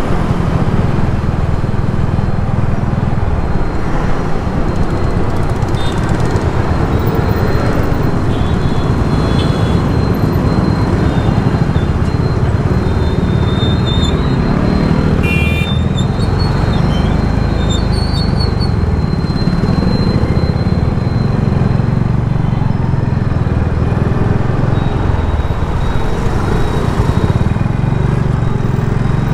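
Steady road and traffic noise heard from a moving vehicle: a continuous low rumble of engine, tyres and passing traffic, with a few short high tones about halfway through.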